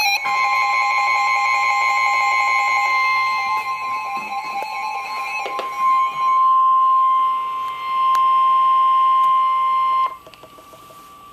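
Emergency Alert System warning tone: one loud steady tone held for about ten seconds, then cut off suddenly. It signals that a flash flood warning message is about to be read.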